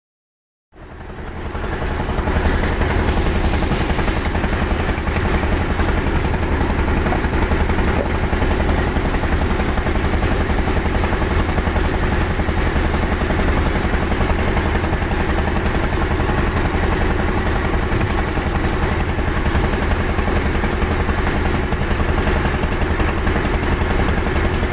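A fishing boat's engine running steadily with a deep, even hum. It fades up out of silence in the first second or two.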